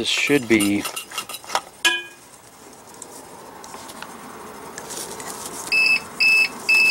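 APC Back-UPS XS 1000 alarm beeping near the end: short, high, evenly spaced beeps about two a second, the UPS signalling that it is running on battery. A light ringing clink about two seconds in.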